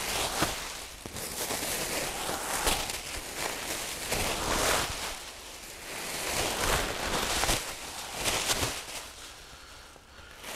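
Plastic bubble-wrap packing rustling and crinkling as it is handled and pulled out of a shipping crate, in irregular bursts.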